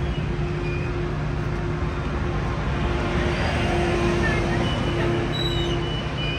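Sounder commuter train rolling slowly along the platform, its diesel locomotive giving a steady low hum under the rumble of the passing bilevel cars.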